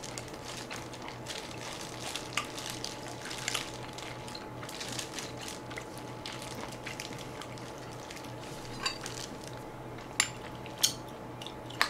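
Close-miked eating sounds of braised short ribs being torn and chewed with plastic-gloved hands: small wet smacks and soft ticks over a steady low hum. A few sharper clicks in the last few seconds, a metal spoon against the rice bowl.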